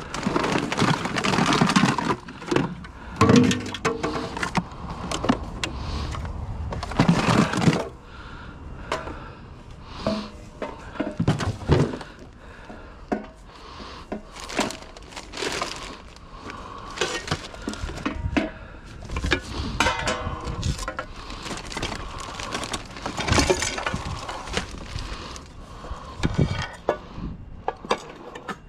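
Gloved hands rummaging through curbside junk: plastic and metal household items clattering and knocking as they are picked up and dropped, in a busy run of sharp knocks, loudest near the start and again about seven seconds in.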